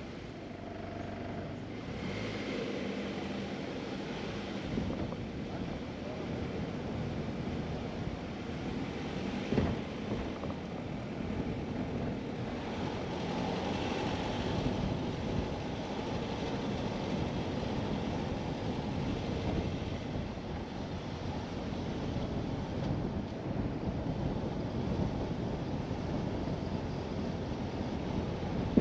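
Wind buffeting the microphone over the steady tyre and road noise of a car driving slowly, with one brief knock about ten seconds in.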